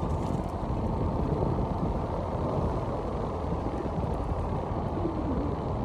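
Steady wind and road rumble of a car driving along, with most of the sound low-pitched and no sudden events.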